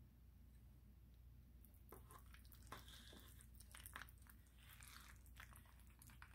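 Faint wet squishing of a metal slotted serving spoon working through baked mac and cheese, with light clicks and scrapes against the aluminium foil pan, from about two seconds in.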